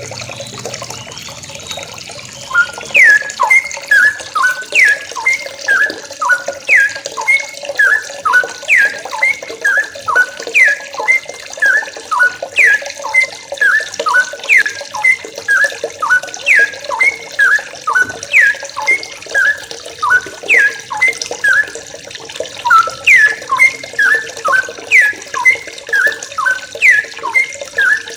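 Yellow-vented bulbuls (trucuk) calling over and over, a quick falling note followed by short chirps, about once a second, starting a couple of seconds in. A steady rush of running water lies underneath.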